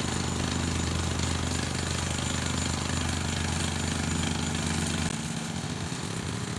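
Mini-excavator's diesel engine running steadily under load, dropping in level about five seconds in.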